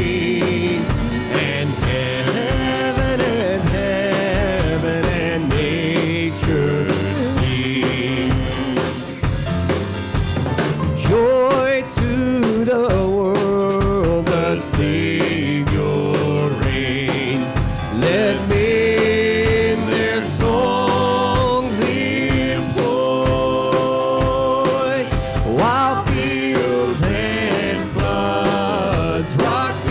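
Live worship band playing a song with singing, drum kit and instruments keeping a steady beat.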